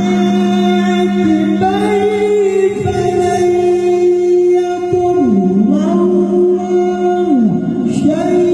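A male Quran reciter's voice holding a long, ornamented sung note in melodic recitation, the pitch mostly steady with two swooping dips down and back up in the second half.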